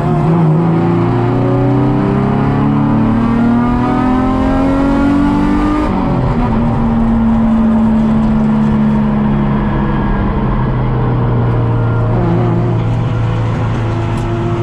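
Nissan 350Z race car's 3.5-litre V6 engine heard from onboard, rising slowly in revs for about six seconds, then dropping in pitch at an upshift and running at steady revs.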